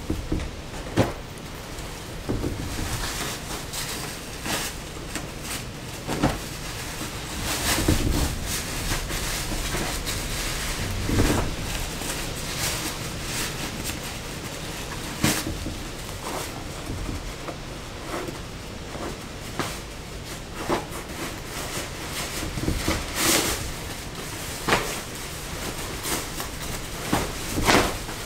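Camping gear being handled: stuff sacks and clothing rustling, with irregular sharp clicks and thumps, over a steady background hiss.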